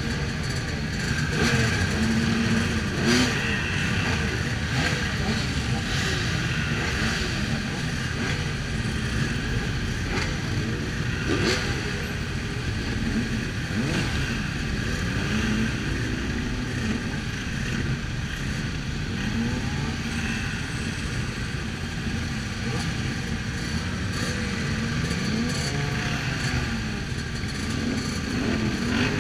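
A mass of motorcycle engines running together at low speed, with individual bikes blipping their throttles so engine notes rise and fall here and there over a steady drone.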